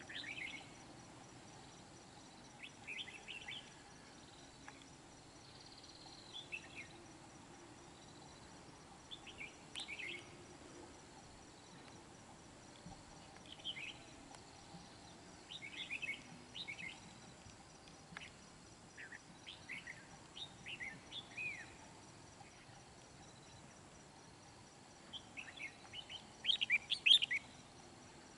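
Red-whiskered bulbuls singing short, bright chirping phrases every few seconds, with the loudest flurry near the end, over a faint steady background noise.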